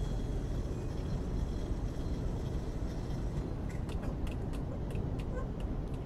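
Steady low outdoor rumble and hiss by empty railroad tracks, with a few faint clicks and short chirps from about four to five and a half seconds in.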